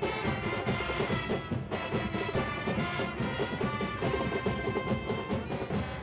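Large brass band with drums playing loudly: trumpets and other brass over steady percussion.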